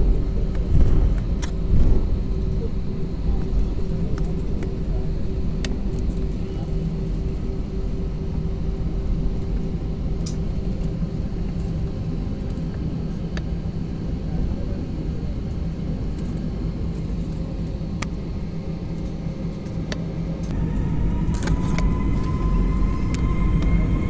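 Turbofan engines of an Airbus A320-family airliner heard from the cabin: a steady low rumble while taxiing, then about twenty seconds in the engines spool up for takeoff with a rising whine and the sound growing louder.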